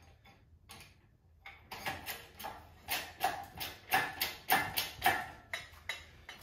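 Shop engine hoist being hand-pumped to raise a motorcycle hung from its chains: a quick run of metallic clicks and knocks, about three a second, starting a couple of seconds in after a few scattered clicks.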